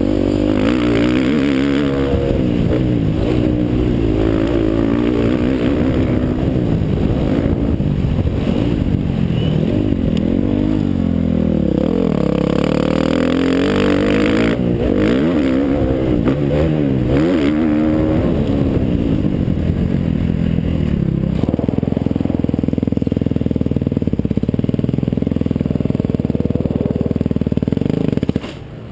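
Dirt bike engine heard onboard, revving hard up and down through the gears over a rough motocross track. About two-thirds of the way through it settles to a steady lower note, then drops off sharply just before the end.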